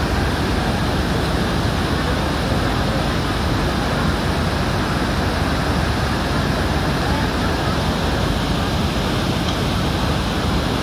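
Muddy floodwater from a mountain stream in spate rushing through a walled channel, a steady, loud, even rush of water.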